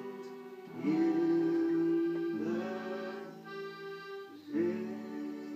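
Piano accordion playing long held chords, three of them, changing about a second in and again midway, as the closing chords of a song.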